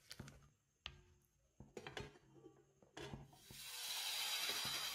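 A ladle knocks and scrapes a few times in a bowl of crepe batter, then batter poured onto a hot pan sizzles: a steady hiss that builds about three seconds in and holds.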